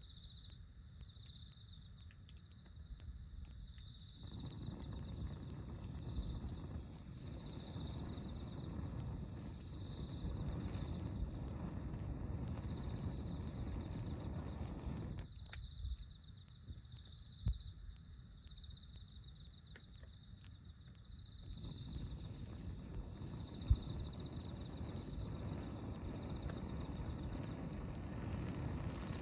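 Night insects, crickets or similar, chirring in a steady, continuous high drone with a faint regular pulsing. Scattered sharp crackles and pops from a wood campfire sound now and then, one louder pop near the end.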